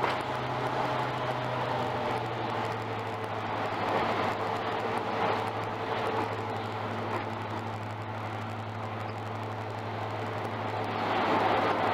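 Heritage-railway train pulled by a diesel locomotive, running slowly: the engine's steady low drone over the noise of the moving carriages.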